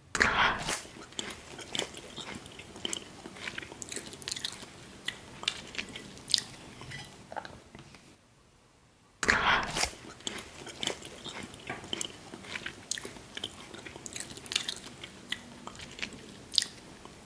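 Close-up eating of mashed potato made from boiled potato chips, topped with crunchy cheese puffs: a loud crunching bite followed by chewing with many small crunches and clicks. After a short pause a little past halfway, a second loud bite and another round of chewing follow.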